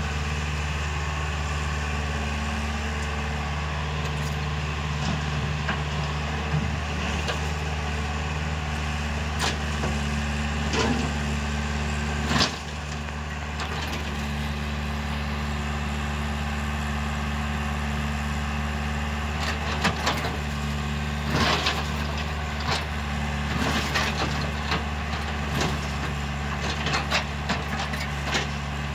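Excavator's diesel engine running steadily under working load, with scattered sharp clacks and knocks of broken rock against the steel bucket and truck body as it scoops and loads stone, more frequent in the second half.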